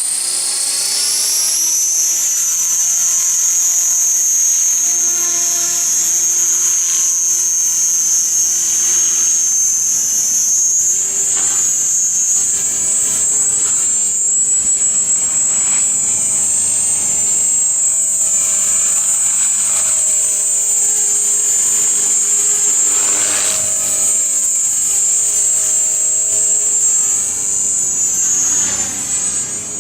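Art-Tech Genius 500 electric RC helicopter running, its motor and rotor drive giving a steady high-pitched whine that settles slightly lower in the first couple of seconds, with lower tones and brief intermittent buzzes underneath: the strange 'zzz' kind of sound the owner is showing.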